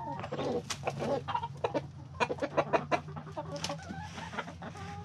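A flock of hens and roosters clucking close by in short, broken calls, mixed with many quick, sharp clicks.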